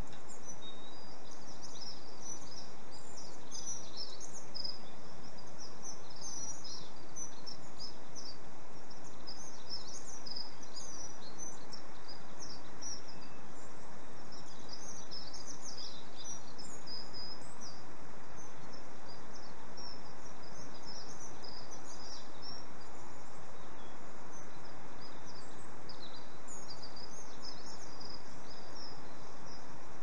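Small songbirds chirping and twittering, many short high calls in quick succession, over a steady background hiss.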